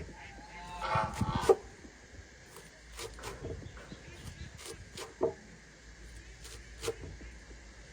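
Farmyard bird calls: a short pitched call about a second in, then scattered brief clucks or pecks every second or two.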